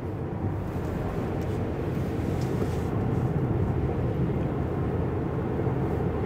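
A car driving along a city road, heard from inside the cabin: steady low road and engine noise.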